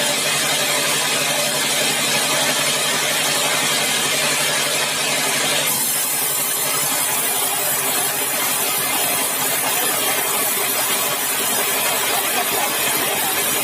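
Sawmill machinery running steadily: a constant engine hum with a bright hiss over it. The hiss drops away sharply about six seconds in while the hum carries on.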